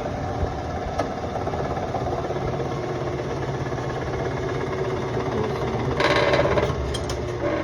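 A steady machine hum, like a motor or engine running, with a few faint clicks and a short noisy burst a little after six seconds in.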